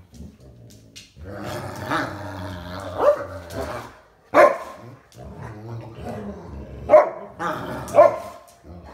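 Two dogs play-fighting: long stretches of low growling, broken by short sharp barks about three seconds in, again a second later, and twice near the end.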